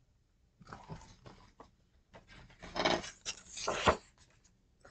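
Paper pages of a pop-up picture book being handled and turned: a few light rustles and clicks, then two louder rustling sweeps of paper about three seconds in.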